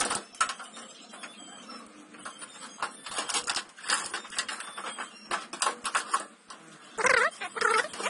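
Irregular knocks, clicks and rattles of sheet metal and plastic as an old washing machine is pulled apart by hand, its control board and wiring being wrenched out of the cabinet. About seven seconds in the clatter gets louder, with a brief wavering pitched sound.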